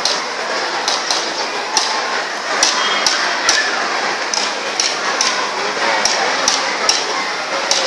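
School marching band (band melam) playing, its drums beating a steady march rhythm of strikes about twice a second, every other one stronger, over a continuous dense wash of band sound.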